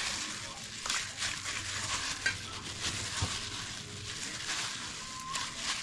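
Food being stirred with a utensil, which scrapes and clicks against the bowl or pan in quick irregular strokes over a steady hiss.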